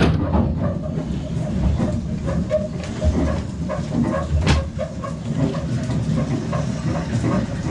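Steady low rumble of the fishing boat's running motor heard inside the cabin, with scattered clicks and knocks as a book is pulled from a shelf and its pages flipped; one sharp click about four and a half seconds in.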